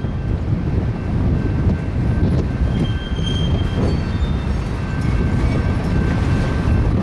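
Freight cars, a covered hopper and then tank cars, rolling past: a steady low rumble of wheels on rail, with a faint high wheel squeal about three seconds in.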